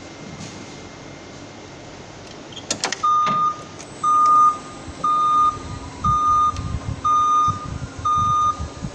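Forklift's backup alarm beeping about once a second, each beep about half a second long, starting about three seconds in over the low running of the forklift. A couple of knocks come just before the beeping starts.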